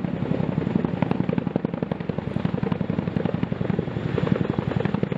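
Boeing CH-47 Chinook tandem-rotor helicopter hovering, its rotor blades making a fast, steady, rhythmic chop.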